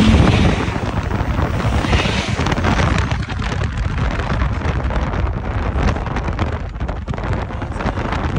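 Loud wind rushing and buffeting on the microphone in a moving car, with the Chrysler 300 SRT8's Hemi V8 and road noise running underneath.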